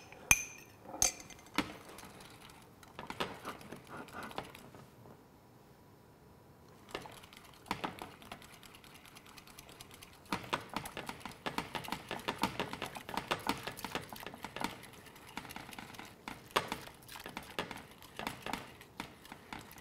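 A few clinks of a metal spoon stirring in a small bowl, then, from about ten seconds in, fast, irregular ticking of a metal utensil stirring against a glass saucepan of thickening vanilla sauce.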